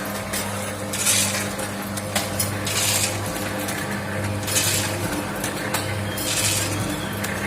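Automatic vertical form-fill-seal snack packing machine running: a steady motor hum under constant light clinking and clattering of pilus snack pellets and metal parts, with a short hiss that comes back about every two seconds as the machine cycles.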